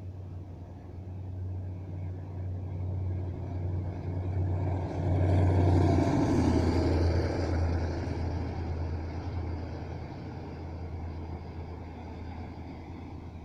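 Diesel locomotive hauling a passenger train past: a steady low engine drone that grows louder to a peak about six seconds in, then fades as the coaches roll by.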